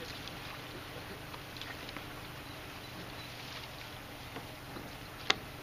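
Harbor water lapping and splashing lightly in small irregular ticks over a steady low hum, with one sharp click about five seconds in.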